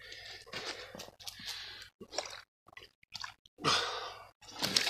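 Short, noisy breaths and wet squelching and dripping as a man strains to lift a large, lively mirror carp off a water-soaked unhooking mat, with the loudest burst about four seconds in.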